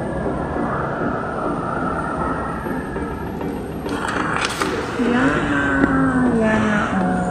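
Payment kiosk's receipt printer running as it prints and feeds out a long paper receipt, over a steady background hum. A voice with a gliding pitch comes in near the end.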